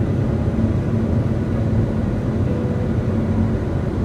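Steady road and engine rumble heard from inside a car cabin while driving at freeway speed.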